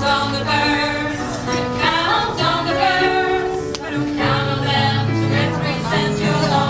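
A choir singing a song in several parts, with held notes over a steady low line.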